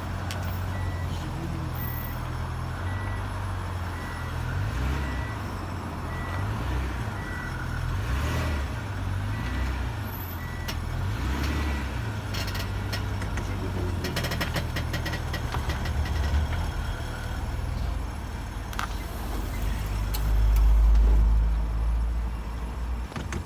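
Inside a Nissan Elgrand minivan on the move: steady low road and engine rumble, with the body creaking and clicking, in a dense run of clicks about halfway through. A faint short beep repeats a little faster than once a second for the first third, and the rumble swells near the end.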